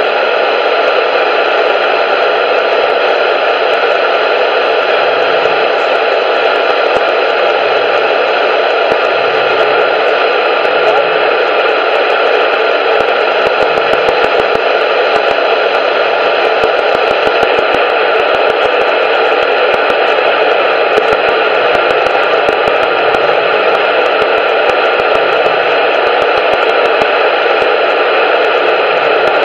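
Radio static: a steady, loud hiss from a radio receiver with no signal coming through, with faint scattered crackles.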